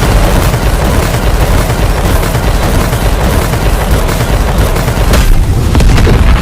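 Very loud, dense rapid gunfire, a sound effect of continuous machine-gun fire with shots packed too closely to separate, the shots standing out more distinctly near the end.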